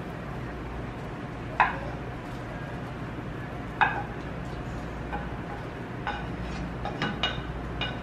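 Wooden spatula knocking and scraping against a skillet as its contents are scraped out into a bowl: two sharp knocks, then a run of lighter taps near the end, over a steady low hum.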